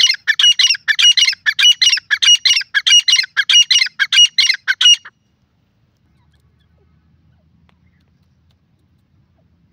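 Grey francolin (teetar) calling: a fast run of loud, harsh, high notes, about three a second, that stops abruptly about five seconds in. A faint low rumble follows.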